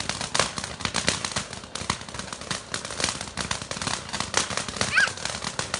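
Garden firework crackling: a fast, dense, irregular run of sharp pops and crackles.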